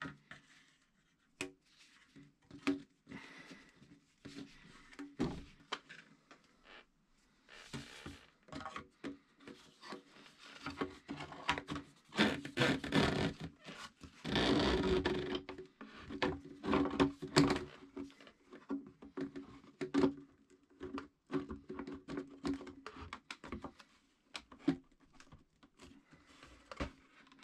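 Wooden workpieces being handled at a bench: scattered knocks and taps, with longer bursts of scraping or rubbing about twelve and fifteen seconds in.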